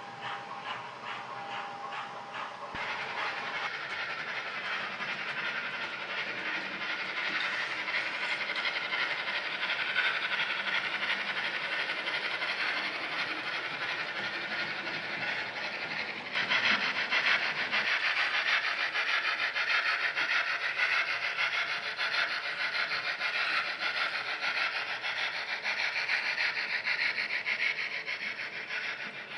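OO gauge model train running past on the layout's track: a steady rolling clatter of the coaches' wheels on the rails, turning abruptly louder about halfway through.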